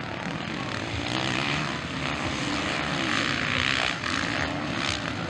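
Several motocross bikes racing, their engines revving, swelling louder about a second in and again past three seconds.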